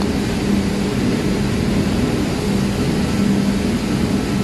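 Steady drone of machinery running, with a constant low hum.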